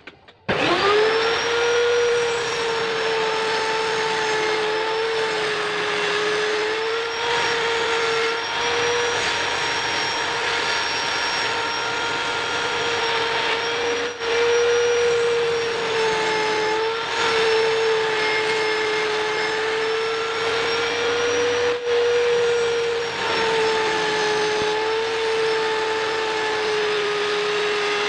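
Table saw spinning up about half a second in, then running with a steady high whine as it cuts through a plywood sheet; the pitch sags slightly now and then as the blade takes the load.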